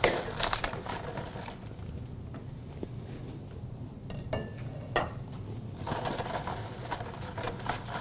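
Light kitchen handling sounds: scattered soft clicks and rustles, a brief faint ringing clink about four seconds in and a sharper knock about a second later.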